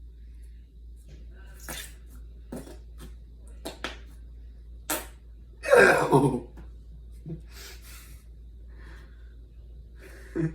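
Flarp noise putty squeezed in its pot, making fart noises: several short squelching pops, then one longer, louder fart noise about halfway through.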